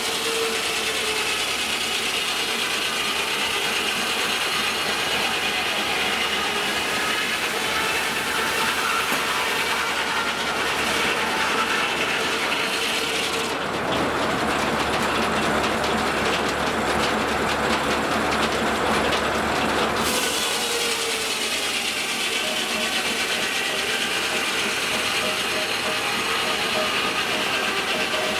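Steam-powered sawmill running: the large circular head saw spins with a ringing whine while the log carriage's gearing clatters with rapid clicking. About halfway through, the whine gives way for several seconds to a coarser rushing noise as the blade works through the log, then returns.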